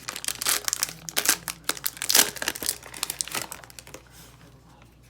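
Plastic wrapper of a football trading-card pack being crinkled and torn open, a dense crackling that stops about four seconds in.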